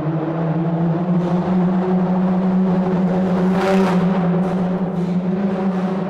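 Car driving through a tunnel: a deep, steady engine and road drone booming off the tunnel walls, with a brief rush of hiss near the middle.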